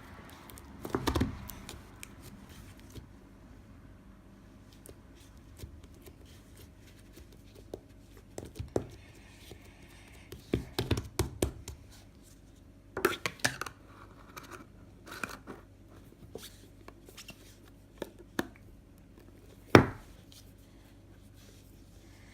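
Hands working a batch of homemade borax slime: scattered sticky clicks and pulling sounds in short clusters, the loudest near the end, over a faint steady hum.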